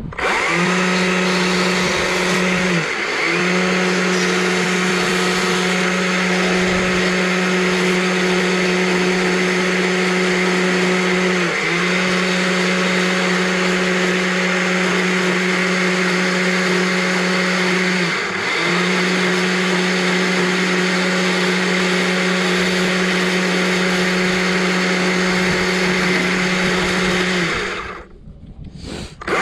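Stihl chainsaw with a carving bar running at high revs as it cuts into a small log, holding a steady pitch. The pitch dips briefly three times between cuts. Near the end it drops away for about a second, then picks up again.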